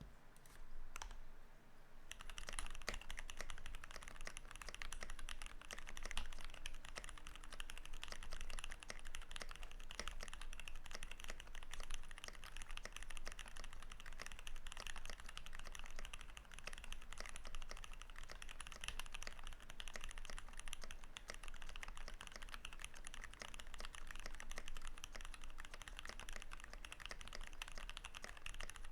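Continuous typing on a custom 65% mechanical keyboard with a brass plate, lubed and filmed Durock Light Tactile switches and PBT keycaps, dampened with switch pads, a tape mod and polyfill. A couple of single keystrokes come first, then steady, fast typing from about two seconds in.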